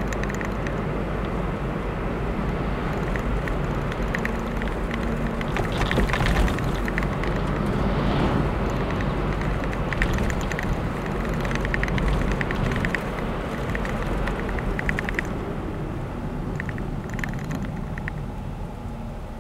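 Car driving along a road, heard from on board: a steady engine and tyre rumble with many light rattling clicks. It grows quieter over the last few seconds.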